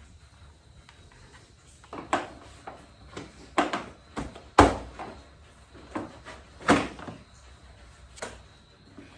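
Irregular knocks, clicks and clunks of hard parts and tools being handled during hand work, about a dozen over several seconds. The two loudest come about halfway through and about two-thirds of the way in.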